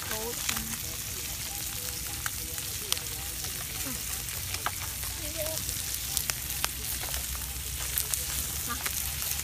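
Fish sizzling on a hot corrugated metal sheet over a wood fire: a steady hiss with scattered pops and crackles.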